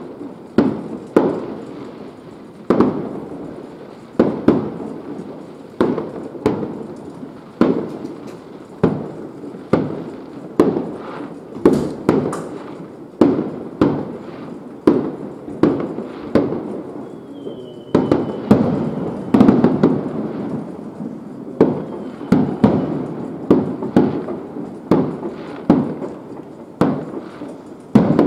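Fireworks display: aerial shells bursting in quick succession, a boom every half second to a second, each trailing off in reverberation.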